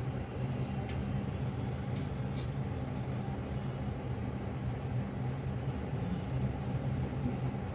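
A steady low hum, with a few faint light clicks.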